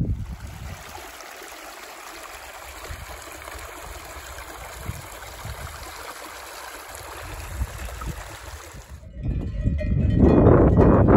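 Steady rushing of a mountain stream. About nine seconds in it cuts abruptly to louder wind buffeting the microphone.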